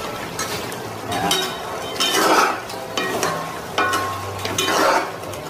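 Metal and wooden spatulas scraping and stirring fried turon through a bubbling sugar sauce in a stainless steel pan, with sizzling underneath. Louder scrapes come about two and a half seconds in and near the end.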